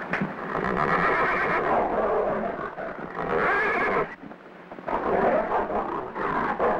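A black stallion neighing: three long, loud neighs with short gaps between them.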